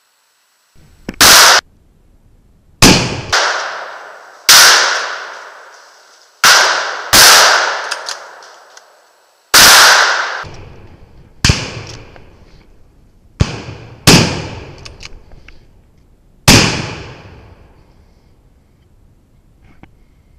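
Hunting rifle fired in a string of about ten loud shots over some fifteen seconds, each echoing for a second or two through the woods before the next.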